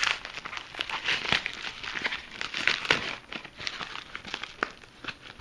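A mailed package being opened and its packaging handled: rapid, irregular crinkling and rustling, busiest in the first three seconds and thinning out toward the end.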